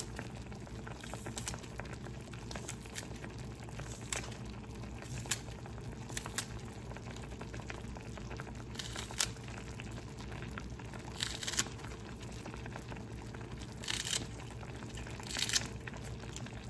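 Pan of Buldak noodles simmering on the stove, bubbling steadily on lowered heat. Scattered light clicks and a few brief louder bursts of noise, mostly in the second half.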